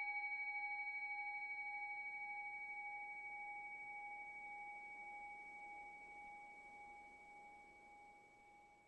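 Struck bowl bell ringing out: a clear tone with higher overtones, fading slowly with a gentle wavering.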